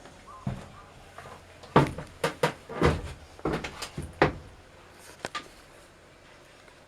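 A quick run of sharp knocks and clunks, about ten of them over three or four seconds, then they stop.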